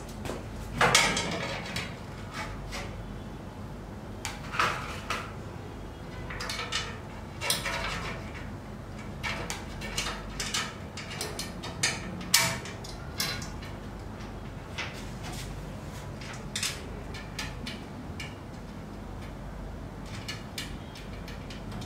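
Metal parts of a CNC router leg kit clanking and knocking as a long black metal bracket is handled and fitted against the leg frame and controller mount tray: a string of irregular clanks and taps, the loudest about a second in and again near the middle.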